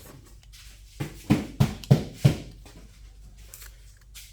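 Five quick knocks, about three a second, of two stuck steel socket extensions being banged to work them apart.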